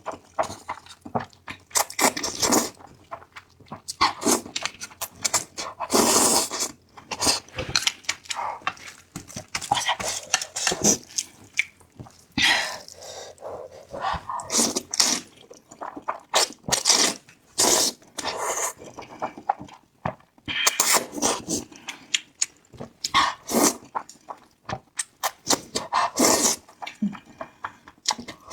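Close-miked eating of spicy noodles: slurping and chewing in short, irregular bursts with brief pauses.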